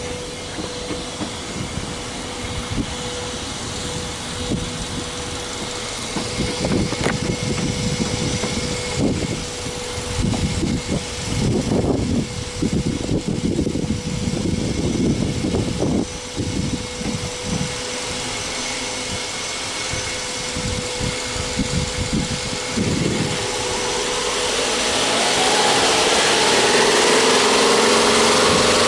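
Subaru Legacy 2.5i's EJ25 2.5-litre flat-four (boxer) engine idling, heard at the open engine bay. It grows louder near the end, with the pitch shifting.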